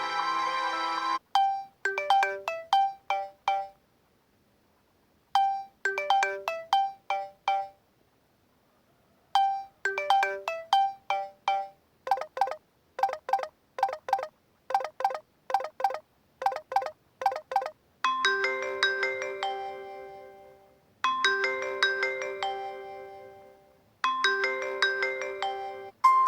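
Samsung Galaxy J1 Ace stock ringtones previewed one after another. First a short melody of quick notes plays three times with pauses between. Then a stretch of rapid repeated notes, and from about eighteen seconds in a held chord pattern that repeats about every three seconds.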